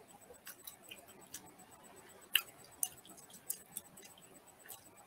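Mouth chewing sticky palitaw rice cake with peanuts, giving scattered soft wet clicks and smacks at an uneven pace, a few sharper ones after the halfway point.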